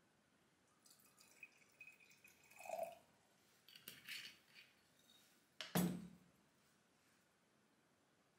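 Quiet handling of glass bottles over stemless drinking glasses: a few soft drips and light clinks as the soju bottle is finished with and capped, and one sharper knock about six seconds in.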